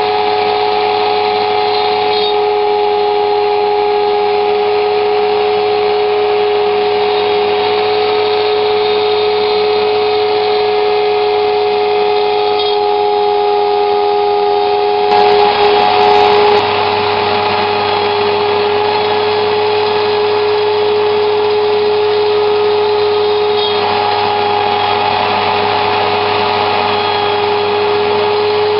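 A Dremel rotary tool spinning at high speed as the spindle of a Shapeoko 2 CNC router, milling wood with a steady whine, over the continuous rush of a vacuum cleaner drawing chips up a hose at the bit. The sound gets briefly louder about halfway through.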